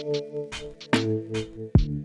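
Background music: an electronic track with a steady drum-machine beat over sustained synth notes.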